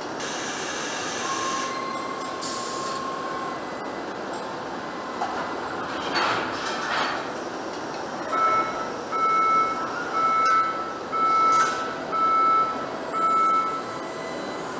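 Car-body assembly line running with a steady machinery hum and short bursts of hissing. About halfway through, a warning beeper starts up, sounding about six beeps at roughly one a second, the alert for the body shell being moved on its hoist.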